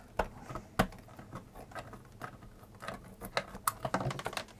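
A thin pointed tool picking and scraping at the edge of a sticker label on a plastic power-supply case, giving a string of small irregular clicks and scratches as the label is lifted.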